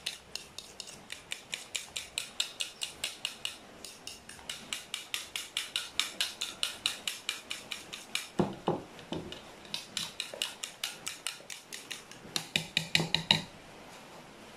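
A metal fork beating egg in a plastic bowl, clicking against the bowl about five times a second. There are short pauses, with a few duller knocks about eight and a half seconds in. The beating stops about a second before the end.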